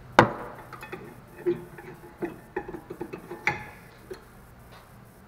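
Metal parts clinking and knocking while being handled during rear brake work: one sharp clank just after the start, then a series of lighter, irregular clinks that stop about four seconds in.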